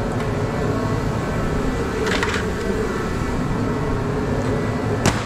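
Steady hum of a blower heater running, with a brief rasp about two seconds in and a sharp click near the end.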